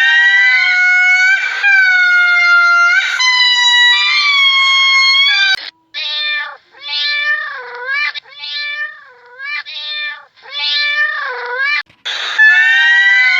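An animal's pitched, drawn-out calls: several long calls with slight gliding pitch, then a run of about five shorter calls that rise and fall in pitch, and long calls again near the end.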